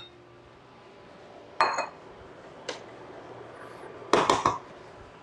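Kitchenware clinks and clatters: a ringing clink about one and a half seconds in, then a quick cluster of clatters near the end, as a ceramic bowl, stainless pan and utensils are handled for plating pasta.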